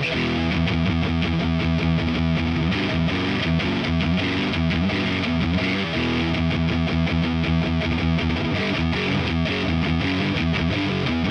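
Distorted electric guitar played continuously with changing chords and riffs: a G&L SC-3 Deluxe with its stock MFD single-coil pickups through a Diezel VH4 high-gain amp and a 4x12 cab loaded with Celestion G12K-100 speakers.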